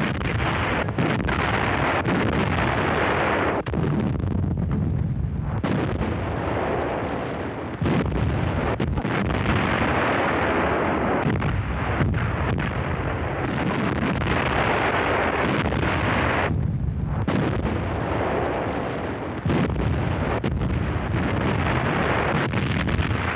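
Heavy artillery firing and shells exploding in a continuous barrage of booms and sharp reports. The barrage eases briefly twice.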